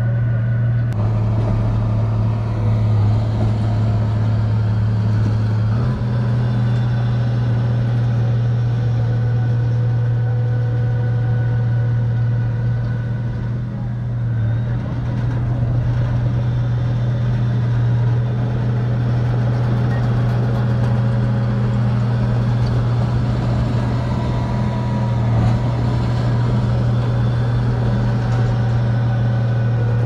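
Heavy earthmoving machinery's diesel engines running steadily with a constant low hum, its pitch shifting slightly about a second in and again around six seconds in.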